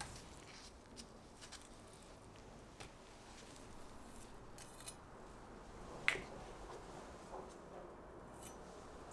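Quiet kitchen prep sounds: a knife cutting into raw marinated chicken on a wooden cutting board, with scattered light clicks and scrapes. About six seconds in there is one sharper click with a brief ring.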